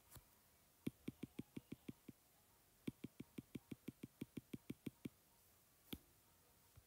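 Quick, faint taps of a stylus on a tablet's glass screen, about six a second, in two runs with a short pause between them and a single tap near the end: repeated taps on undo, taking away handwritten strokes one at a time.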